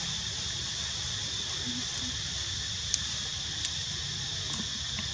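Steady high-pitched drone of insects in the surrounding trees, over a low steady rumble. A sharp click comes about three seconds in, with a fainter one just after.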